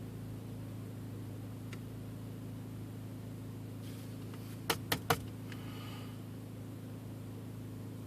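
1.8T (AWW) turbocharged four-cylinder engine idling with a steady hum. Three sharp clicks come in quick succession about halfway through.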